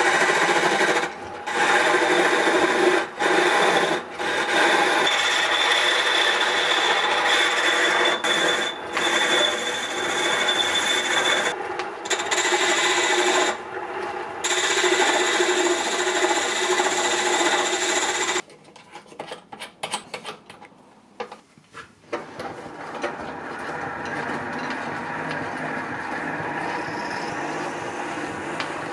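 Chisel scraping a spinning wooden spindle on a small homemade aluminium lathe: a rasping cut broken by short gaps as the tool lifts off, stopping about 18 seconds in. After a short lull the lathe runs on with a softer, steady sound.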